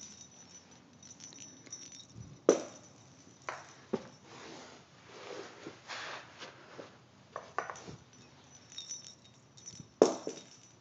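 Small cat toy balls being knocked about on carpet: several sharp knocks, the loudest about two and a half seconds in and again near the end, with faint jingling and light rustling in between.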